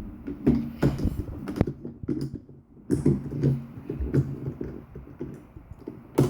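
Hard plastic toy parts clicking and rattling as an alien figure is fitted into an Imaginext spaceship toy.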